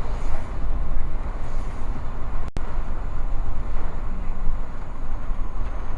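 Steady low rumble of a vehicle on the move, engine and road noise, with a momentary break in the sound about two and a half seconds in.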